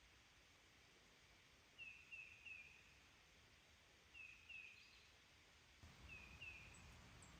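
A bird calling faintly: short, high, falling notes in groups of two or three, repeated every couple of seconds. A low rumble comes in near the end.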